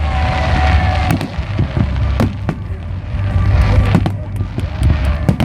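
Fireworks bursting: a string of sharp bangs and cracks over a continuous deep rumble of booms.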